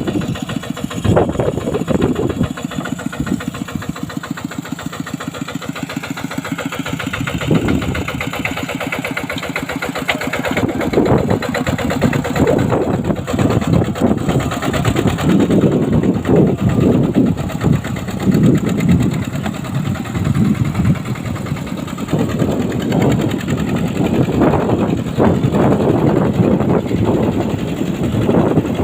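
Diesel engine of a farm bulldozer running with a fast, even chugging. It grows louder and rougher from about ten seconds in.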